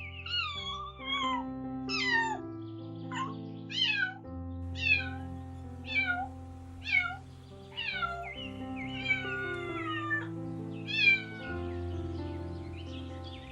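Domestic cat meowing over and over, about one meow a second, each meow falling in pitch, with background music playing steadily underneath.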